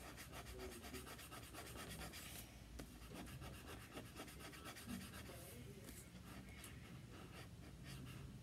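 Faint, repeated soft scratching of a tissue-wrapped fingertip rubbing back and forth over pencil shading on paper, smudging the graphite to blend it.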